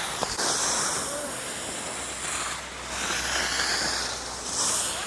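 Ski or snowboard edges scraping over packed snow in three swelling rushes, one for each turn, with wind on the microphone and a sharp click near the start.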